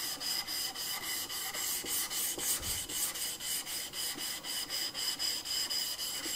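Steel chisel back being rubbed flat on a wet 1000-grit Shapton Glass water stone: a gritty rasp in quick back-and-forth strokes, about four a second, as the face is flattened in the stone's slurry.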